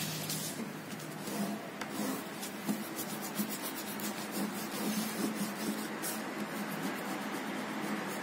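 Red crayon rubbed back and forth on drawing paper to shade a border, a steady rasp made of many quick strokes.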